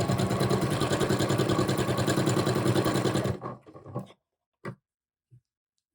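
Sewing machine fitted with a walking foot stitching at speed with a rapid, even rhythm, then stopping about three and a half seconds in; a few faint clicks follow.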